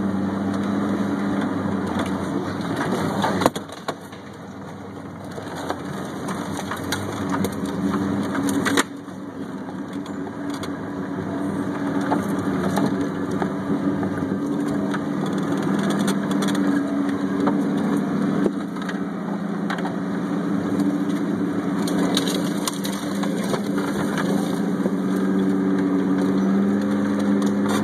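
Jeep engine running steadily at low speed while crawling a wooded dirt trail, with scattered sharp cracks and scrapes of brush and twigs against the vehicle and under the tyres. The engine note drops off suddenly twice, early on and about nine seconds in, then comes back up.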